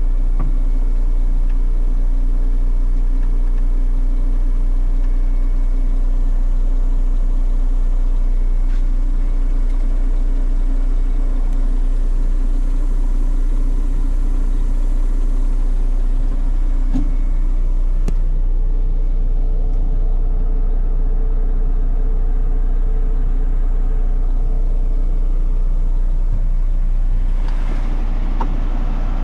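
Diesel engine of an International WorkStar 7600 dump truck idling steadily, a constant low hum heard from inside the cab. Near the end some handling noise is added.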